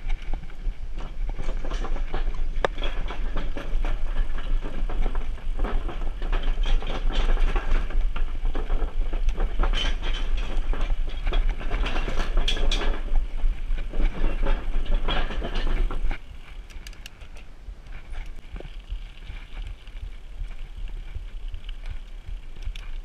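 Mountain bike tyres rolling over the plank deck of a steel truss bridge: a loud, uneven rattling clatter of the boards under the wheels, with wind rumble on the microphone. About sixteen seconds in the clatter stops suddenly as the bike rolls onto asphalt, leaving quieter tyre and wind noise.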